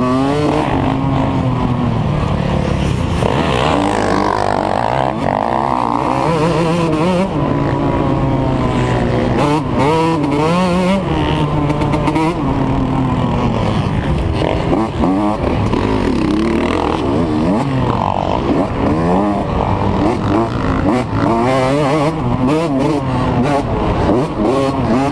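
Dirt bike engine heard from the rider's position, revving up and down over and over as the rider accelerates, shifts and backs off around a motocross track.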